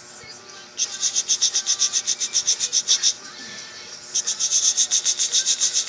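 A rapid rhythmic rasping scratch, about nine strokes a second, in two runs of a couple of seconds each with a short pause between.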